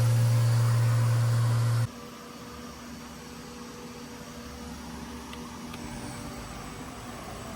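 A Hurco VMX-42Di CNC vertical machining center running under power: a loud, steady low hum cuts off suddenly about two seconds in, leaving a quieter, steady machine hum.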